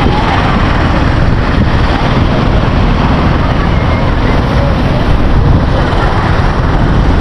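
Loud, steady rush of wind buffeting the microphone, mixed with road and vehicle noise, as when recording from a moving vehicle.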